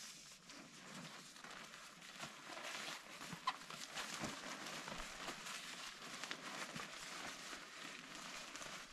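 Rustling with scattered light clicks and knocks from camping gear being handled, with one sharper click about three and a half seconds in.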